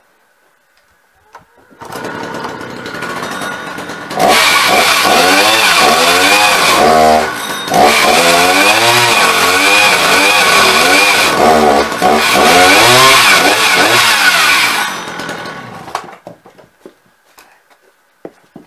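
A two-stroke chainsaw starts about two seconds in and idles briefly. It is then run at full throttle, cutting through a log, its pitch wavering under the load of the cut. Near the end it drops back and stops, followed by a few wooden knocks.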